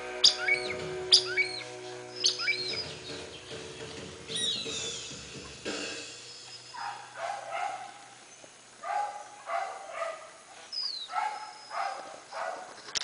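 Wild birds calling: quick high chirps and a falling whistle in the first half, then short lower calls repeated in clusters every second or two.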